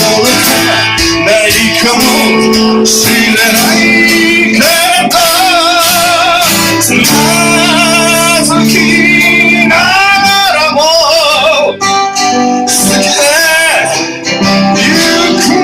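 Music: acoustic guitar strumming with a male voice singing.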